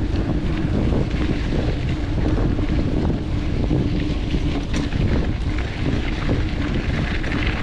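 Wind buffeting the microphone of a camera on a moving mountain bike, with rolling tyre noise, a steady low hum and many small rattles and clicks from riding over a rough trail.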